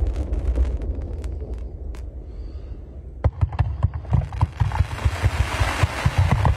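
Fireworks: the low rumble of aerial shell bursts dies away with a few scattered crackles, then about three seconds in a rapid string of launch thumps and pops begins as a battery fires rising comets, several shots a second over a hiss.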